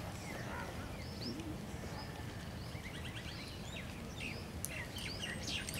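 Small birds chirping and calling, many short rising and falling chirps that grow busier about three seconds in, over a steady low background rumble.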